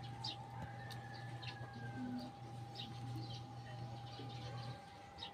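Quiet chewing and lip-smacking as people eat rice and fish by hand, with birds calling in the background. A steady low hum runs under it and cuts off near the end.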